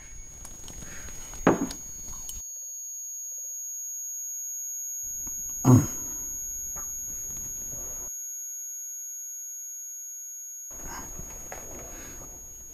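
Film sound design: a steady, high-pitched ear-ringing tone over a deep swell that rises and fades. Two heavy hits land about four seconds apart.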